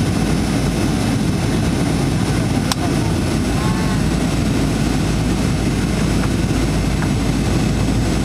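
Steady low cabin noise of a Boeing 737-900ER on approach, heard from a seat over the wing: the CFM56-7B turbofan engines and rushing airflow. A single sharp click sounds about three seconds in.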